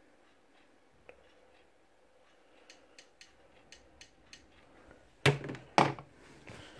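Faint clicks of remote-control buttons being pressed, several in a row, then two loud thumps about half a second apart near the end.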